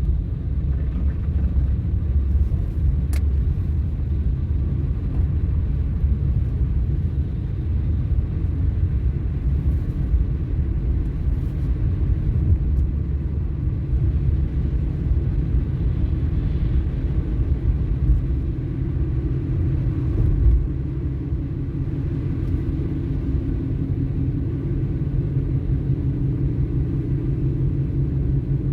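Car interior road noise while driving on a snowy road: a steady low rumble of engine and tyres, with two short thumps about two-thirds of the way through.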